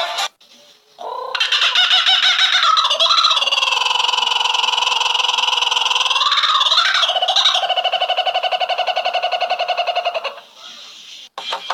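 A bird giving one long, loud, pitched call that bends in pitch twice, then breaks into a fast, even trill for its last few seconds before stopping abruptly.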